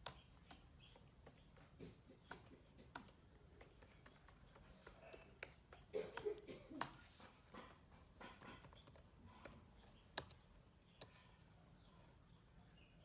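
Faint keyboard typing: scattered single key clicks with uneven pauses and a short flurry about six seconds in, as someone tries to type a login password.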